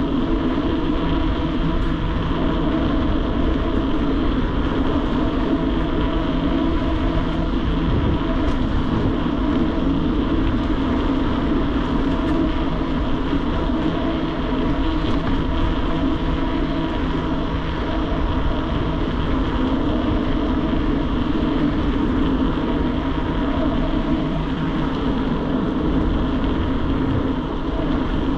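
Steady wind and road noise from a mountain bike being ridden on the road, a continuous rushing with a steady hum running through it.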